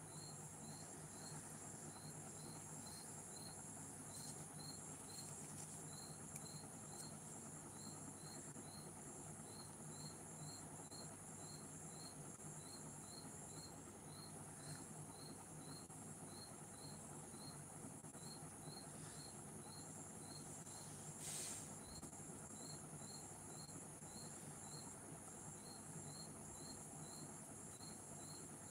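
Faint crickets chirping, short regular chirps a few times a second in small groups, over a steady high insect drone and a low steady hum. A brief scratch or rustle about 21 seconds in.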